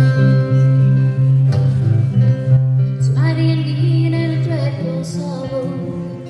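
Acoustic guitar strumming, with a higher sustained melody line over it that enters about three seconds in and bends in pitch.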